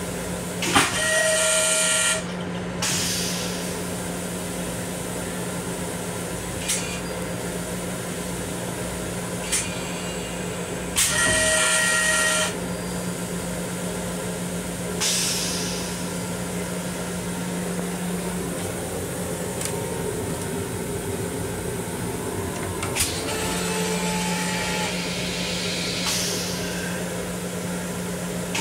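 Steady low hum of an M7 commuter railcar's equipment heard inside its restroom. Loud bursts of air hiss with a whistling tone come about a second in, around eleven seconds in and again at the end, with a few sharp clicks in between.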